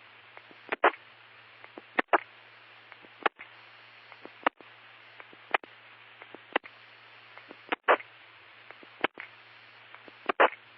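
Radio channel hiss with a low hum, broken by a short crackle and dropout about once a second.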